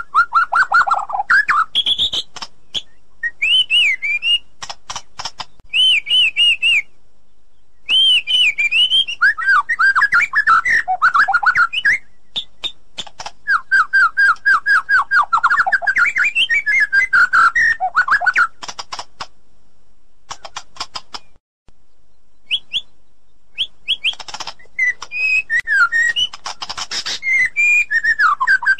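White-rumped shama (murai batu) singing: loud, varied phrases of clear looping whistles mixed with rapid runs of sharp ticking notes, breaking off briefly twice.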